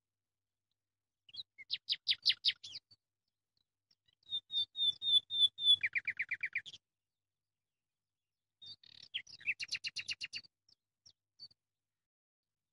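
A small bird singing three short phrases of rapid, high trilled notes: one about a second in, a longer one from about four to seven seconds in that drops to a lower trill, and another near ten seconds in.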